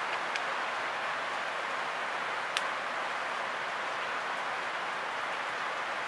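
Steady hiss of rain falling, even throughout, with two faint clicks about half a second and two and a half seconds in.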